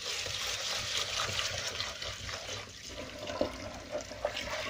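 Tap water running into a plastic bowl of rice in a stainless steel sink, with a hand swishing the grains to rinse them.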